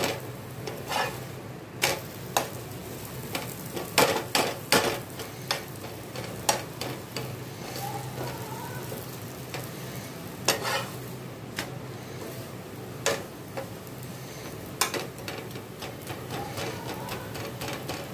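Chapati frying in a little oil on a tawa, sizzling steadily, while a flat metal spatula presses and scrapes it against the pan in irregular taps and scrapes.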